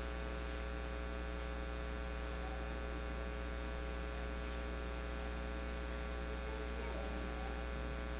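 Steady electrical mains hum with a buzz of many fixed tones above it, unchanging throughout.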